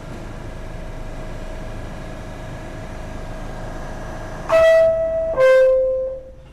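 NYC subway R46 car standing in a station, its equipment giving a steady hum with a faint steady tone, then the two-note door chime, a higher note followed by a lower one, each about a second long, signalling that the doors are closing.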